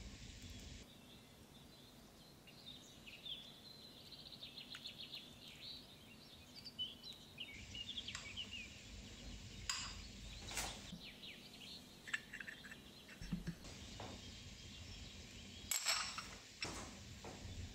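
Small whisk stirring melted white chocolate and cream in a bowl, its wires ticking and scraping against the sides in quick light strokes. A few sharp clinks of utensils on crockery, the loudest near the end as a spoon is set down in a small ceramic dish.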